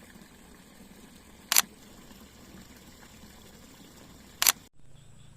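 Two short, sharp clicks about three seconds apart over a faint hiss, followed by an abrupt change to a different, quieter background with a low hum.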